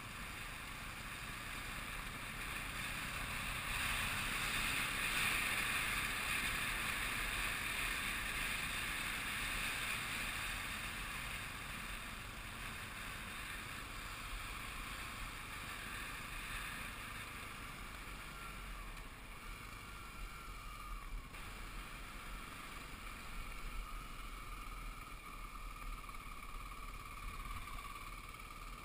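Kawasaki KLX 250 dirt bike's single-cylinder four-stroke engine running while riding, mixed with wind rushing over the onboard camera. It swells a few seconds in, then eases back.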